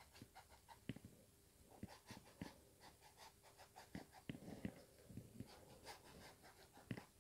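Near silence, with faint, irregular light taps and scrapes of a wide flat brush dabbing oil paint onto canvas.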